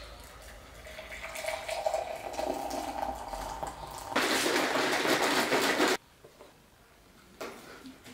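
Kitchen clatter over a steady hum, then about two seconds of loud running water that cuts off suddenly.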